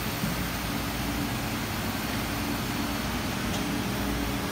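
Makino EDNC65 sinker EDM's work tank filling with dielectric fluid: the fill pump running steadily with the rush and churn of fluid pouring into the tank, over a low machine hum.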